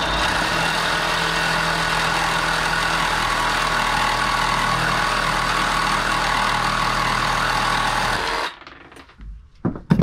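Compact cordless reciprocating saw, a Milwaukee M12 Fuel Hackzall, running steadily as its blade cuts through a metal rod clamped in a vise. The cut goes through and the saw stops about eight seconds in.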